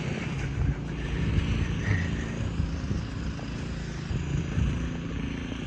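Street noise in a snowstorm: a steady low rumble of wind and passing traffic, with faint engine tones.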